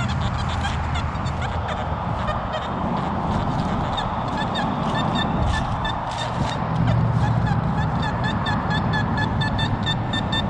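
Metal detector audio: low buzzing tones, then from about the middle on a short high beep repeating about three times a second, over a steady hiss.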